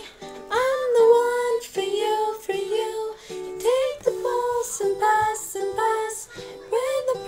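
A young woman singing a melody, with a plucked string accompaniment.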